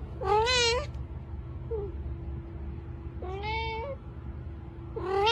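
A domestic cat meowing: a long, loud meow at the start, a softer one about three seconds in, and another loud one beginning near the end, each wavering in pitch.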